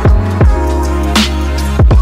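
Background music with a beat: deep drum hits and sharp percussion over held chords.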